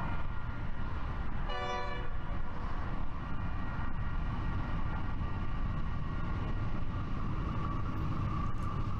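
Diesel freight locomotive's horn giving one short blast about one and a half seconds in, heard from a distance over a steady low rumble from the approaching train.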